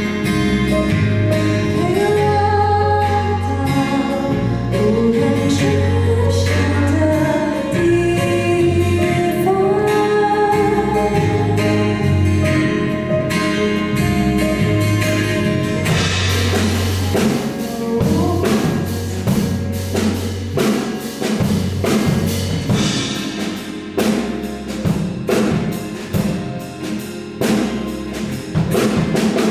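Live band playing a pop song: a melody over held bass notes, then drums come in strongly about halfway and the music turns busier and more percussive.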